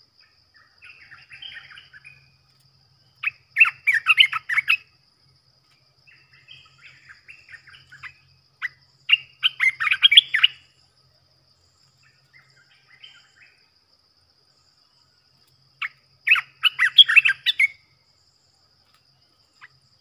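Decoy bulbul singing: three loud bursts of song, each lasting a second and a half to two seconds, with softer twittering between them. A steady high insect trill runs underneath.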